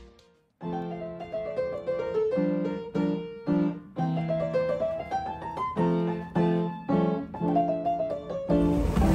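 Background music: a piano melody in separate notes over a repeated low accompaniment, starting after a brief silence. Near the end it cuts to steady engine and wind noise.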